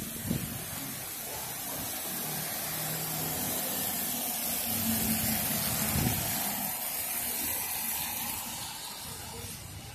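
A car passing close by on a wet road, its tyres hissing through the surface water; the swish swells to a peak about halfway through and then fades, over a steady background hiss of wet traffic.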